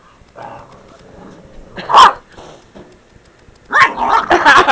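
A puppy barking during play: one sharp bark about two seconds in, then a quick run of several barks near the end.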